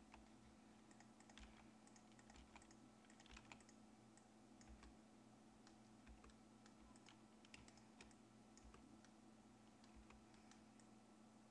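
Faint, irregular clicking of computer keyboard keys and mouse buttons while shortcuts are pressed during 3D modelling, over a steady low hum.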